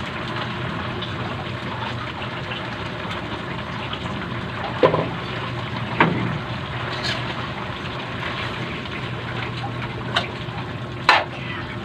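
Steady hiss and bubbling of a wok of sinigang broth simmering on a gas burner. Four sharp metal clinks from a spoon against a bowl and the wok are spread through it, two of them close together near the end.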